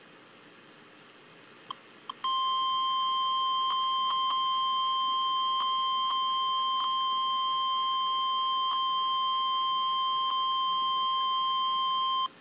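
Emergency Alert System warning tone: a single steady high-pitched tone that comes on about two seconds in, holds for about ten seconds and cuts off sharply, with a few faint clicks over it. The tone is the alert for a severe thunderstorm warning broadcast.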